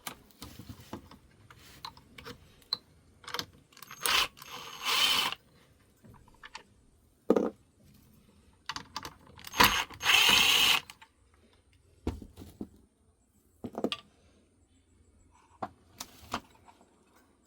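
Cordless drill-driver running in two short spins of about a second each, backing out the screws that hold a car's console trim piece, with clicks and knocks of plastic parts and tools being handled between them.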